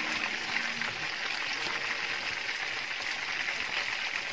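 Chicken pieces frying in a pan of hot oil, a steady sizzle. The chicken is fully fried.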